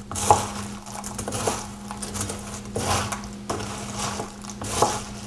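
A spoon stirring chocolate-coated Rice Chex cereal in a stainless steel bowl: rhythmic scraping and rustling strokes with light clinks against the metal, about one every two-thirds of a second, over a steady low hum.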